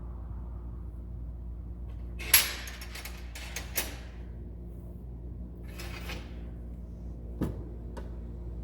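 Metal clatter and a few sharp clicks as wrenches are handled and set into a toolbox drawer, loudest about two seconds in and again with single clicks near the end, over a steady low hum.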